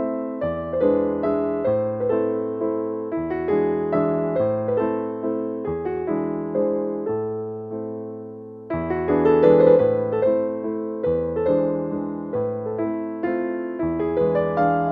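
Gentle background piano music: sustained chords under a simple melody, swelling again after a brief dip about nine seconds in.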